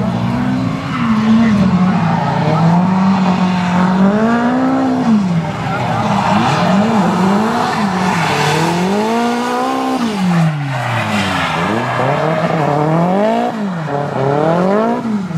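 Nissan Silvia S14 drift car's engine revving hard, its pitch swinging up and down over and over as the driver works the throttle through a drift run, with one deep drop and climb around the middle.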